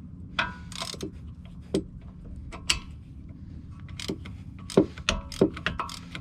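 Hand ratchet with a 15 mm socket loosening a rear brake caliper bracket bolt: a dozen or so irregular sharp metallic clicks and clinks, some with a short ring.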